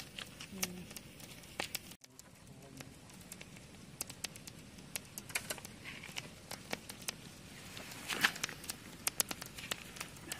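Open wood fire of dry sticks crackling, with frequent sharp pops scattered irregularly and one louder pop about eight seconds in.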